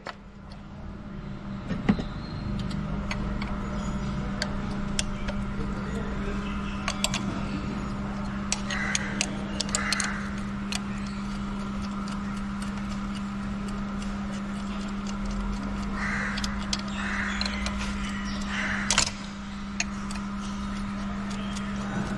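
Metal hand tools clicking and knocking on a diesel engine as a socket wrench works loose the No. 2 fuel injector, the one showing too much back leakage. Crows caw several times over a steady hum.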